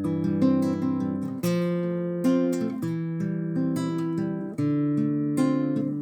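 Acoustic guitar music, chords strummed about once a second.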